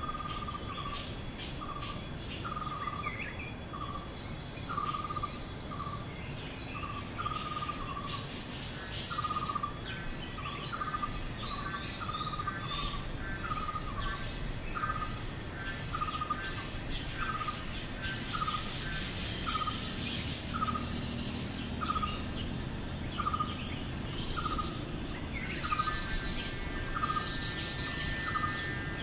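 A steady high-pitched insect trill, with a bird repeating a short single note a little more than once a second and scattered other bird chirps. Near the end, a second, higher bird call joins in.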